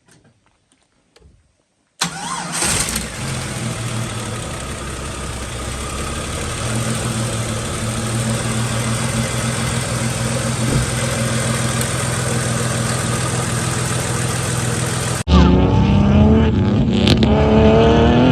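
Jeep Cherokee XJ engine starting about two seconds in and running steadily. This is the engine that had cranked without starting on a P0340 camshaft position sensor code. Near the end the sound cuts abruptly to a louder engine sound.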